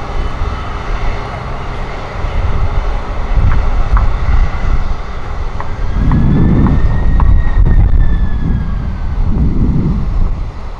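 Airbus A330 airliner on final approach, its twin jet engines running with a steady rumble that swells about six seconds in, and a faint whine that rises and falls. Wind buffets the microphone.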